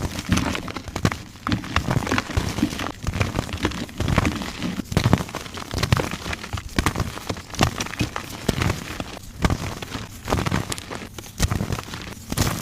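Soft gym chalk blocks being crushed and crumbling, a dense run of crunching and crackling with louder crunches every second or so.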